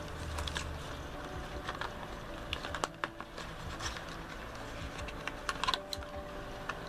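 Irregular light clicks and taps of hard plastic: a clear blister pack and a plastic punch-needle applicator and needle tubes being handled.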